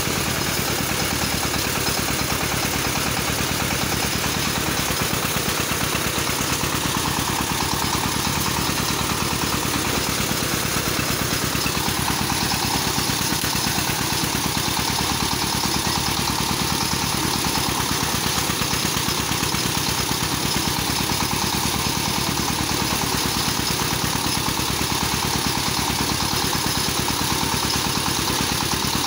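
Engine-driven paddy thresher running steadily as rice stalks are fed into its threshing drum.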